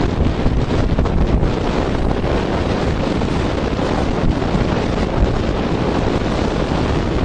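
Strong wind buffeting the microphone over heavy surf breaking, a steady loud rushing noise.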